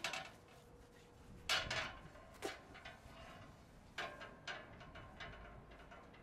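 Steel pieces and a hand tool clanking and scraping against steel plates as they are handled: a string of sharp metallic clinks, the loudest about a second and a half in, some with a short ring.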